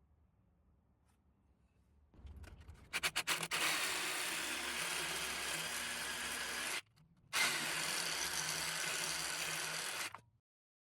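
A power tool running in two long bursts, with a half-second stop about seven seconds in, then cutting off.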